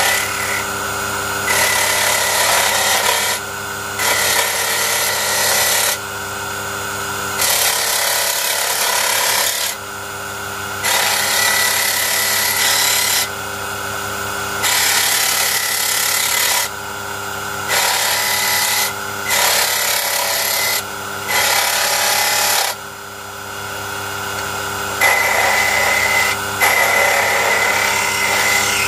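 A small electric power tool runs with a steady whine. It grinds or sands into a wooden part in repeated passes of one to three seconds each, about ten in all, with a hissing rasp each time it bites.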